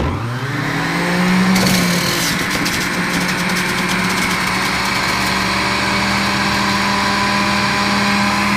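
Electric centrifugal juicer switched on, its motor spinning up with a rising whine over the first second or so and then running steadily. From about a second and a half in, orange is pushed down the feed chute and shredded against the spinning blade, adding a rough grinding crackle over the motor hum.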